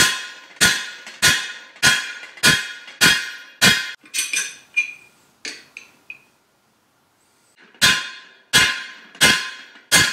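Hammer blows setting the rivets that fasten new sections onto a steel sickle-bar mower knife, peened by hand instead of crimped with the tool. Seven ringing metal strikes come about two a second, then a few lighter taps and clinks, a pause of about two seconds, and four more strikes near the end.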